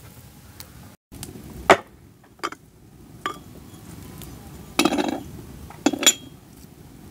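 Glazed clay pots knocked and set down on a wooden cutting board: a series of sharp clinks and knocks, the loudest about two seconds in and two closer clusters near the end.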